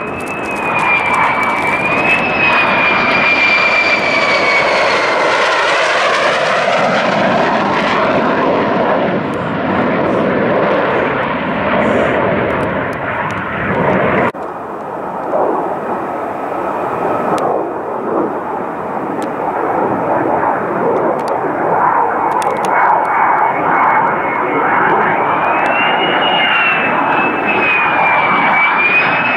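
Loud fighter jet engine noise: a high whine that wavers and glides in pitch over a dense rush. The sound changes abruptly about halfway through. Near the end it comes from an F-35 on final approach with its landing gear down.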